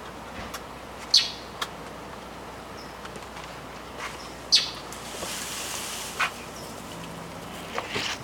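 Small songbird chirping: short, sharp high chirps every second or so, the loudest about a second in and again about midway. These are the parent birds of a nest with a cat close by.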